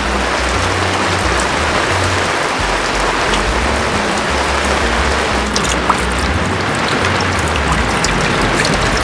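Heavy rain pouring steadily, with the bass line of background music underneath.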